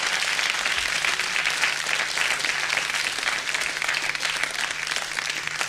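Concert audience applauding after a song, on an old radio broadcast taped to cassette, with a faint steady hum underneath.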